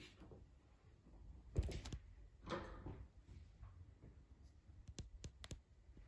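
A dull thump with a short rattle, then a brief brushing sound, then three sharp clicks near the end, all faint in a small, quiet room.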